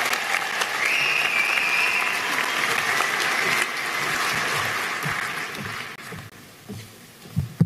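Audience applauding, fading away over the last couple of seconds. A couple of sharp thumps come near the end.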